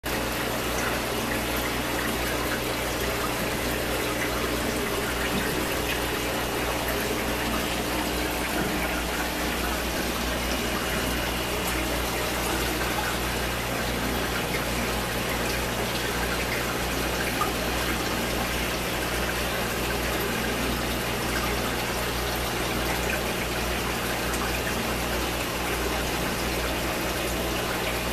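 Aquarium with its air bubbles running: a steady rushing wash of water and bubbling, with a low steady hum underneath.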